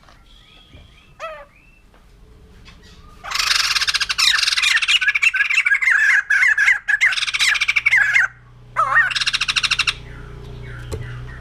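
White-crested laughingthrush calling: a few faint chirps, then from about three seconds in a loud, harsh, rapid chatter lasting about five seconds, followed soon after by a second, shorter burst.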